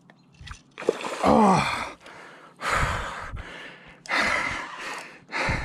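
A man breathing hard after exertion: a groaned 'oh', then several long, heavy, gasping exhales close to the microphone. He is winded from fighting a large salmon on rod and reel.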